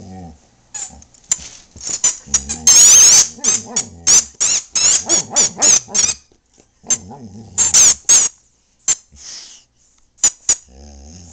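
A Boxer chewing a squeaky popcorn toy, setting off quick runs of short high squeaks with one longer squeal about three seconds in. Between the squeaks the dog grumbles in low, wavering tones, its 'talking' to the toy.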